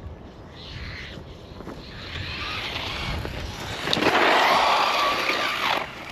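Brushless electric RC truck driving hard on dirt: motor whine and tyres churning through the earth, building louder with a loud stretch from about four seconds in, then falling away abruptly near the end.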